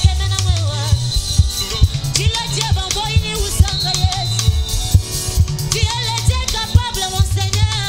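Live gospel band playing: a drum kit keeping a steady, regular beat under a bass line and electric guitar, with a woman singing lead.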